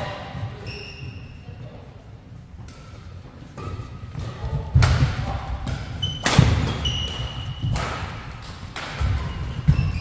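A badminton doubles rally: several sharp strikes of rackets on the shuttlecock, the loudest near the middle as a jump smash. Between them come short squeaks of court shoes on the indoor floor and the thuds of footsteps and landings.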